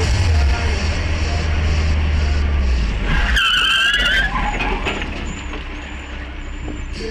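Car tyres squealing in a skid for about a second, partway through, after a steady low rumble.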